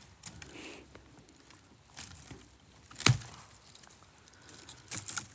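Pruning shears snipping woody branches on a bonsai stump: a few sharp snips, the loudest about three seconds in, with lighter rustling of the cut twigs between them.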